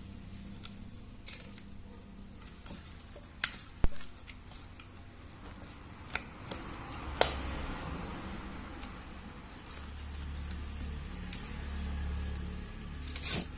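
Hands mixing pieces of carp into a thick, wet chilli and coconut-milk marinade in a steel bowl: soft squelching with a few sharp knocks, the loudest about four seconds in.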